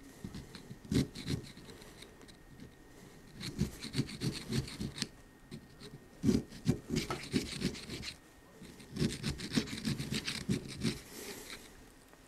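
Steel screwdriver tip scraping caked rust out of the inside of a chrome socket, in several bursts of quick strokes with short pauses between.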